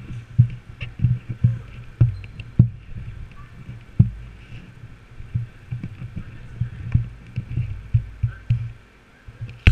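Handling noise from a carried action camera: irregular low thumps and knocks, some with sharp clicks, as it is jostled.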